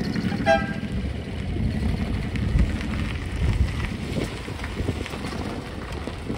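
Decorated kei trucks driving slowly past over gravel, their small engines running with tyre noise and wind on the microphone. A brief high beep sounds about half a second in.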